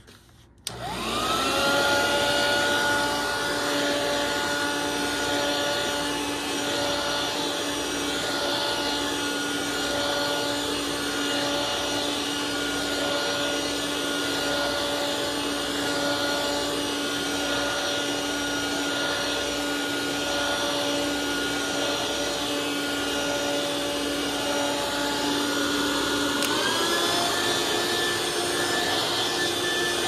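2001 Hoover Cyclonic stick vacuum switched on, its motor whining up to speed, then running steadily as it is pushed over carpet. Near the end the motor's pitch steps up higher.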